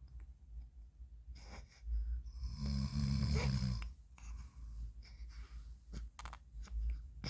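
A man snoring in his sleep: one long, deep snore of nearly two seconds, starting about two seconds in, with faint small sounds in between.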